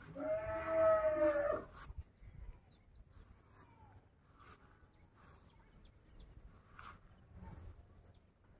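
A single long call from a farm animal, about a second and a half, falling in pitch at the end.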